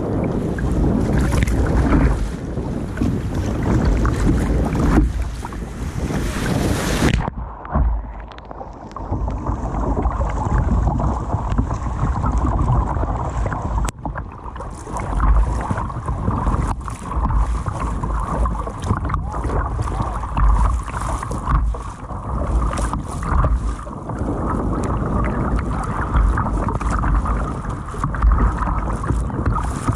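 Wind buffeting the microphone mixed with sea water sloshing and splashing against the bow of a plastic sit-on-top kayak riding small waves. About seven seconds in the bright hiss cuts off suddenly, leaving a duller, muffled rush of wind and water.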